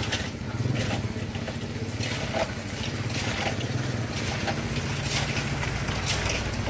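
An engine running steadily at a low, even pitch, with scattered light clicks and knocks over it.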